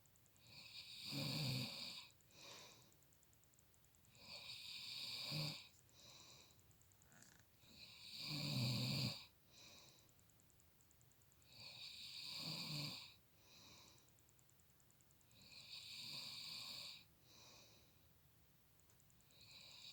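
A man snoring loudly in his sleep: five long snores about four seconds apart, each followed by a shorter, fainter one.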